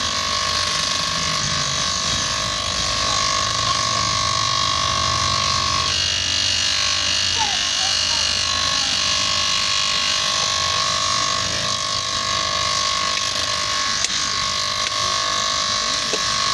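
Electric bench grinder running with a shoe sole pressed against its spinning sanding wheel: a steady motor whine under the hiss of the sole being sanded.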